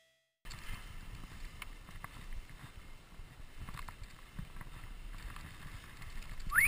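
Skis sliding over snow, with low wind rumble on a helmet camera's microphone. The sound is fairly faint, with a few light clicks, and grows louder near the end.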